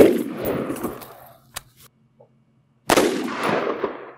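Two shots from an AR-15 rifle with a 10.5-inch barrel firing 5.56 mm soft-point rounds. The first report comes right at the start and rolls away over about a second; the second comes about three seconds in, and each is followed by a long echo.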